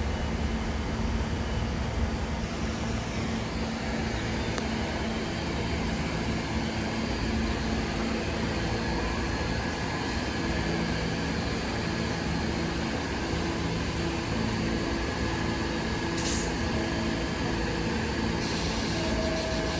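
Steady hum of a standing subway train's air-conditioning and onboard equipment, holding several constant tones. A short hiss comes about sixteen seconds in.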